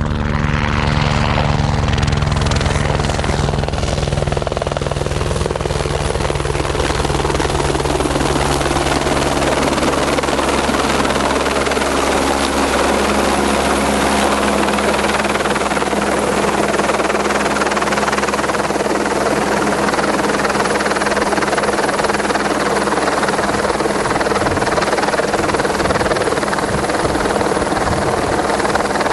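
Helicopter running close and loud. Its low rotor thump is strongest in the first few seconds, then gives way to a steady rushing noise.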